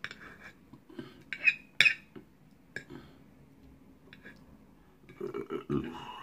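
A metal fork clinking and scraping against a plate while picking up noodles, with a few sharp clinks in the first three seconds, the two loudest close together.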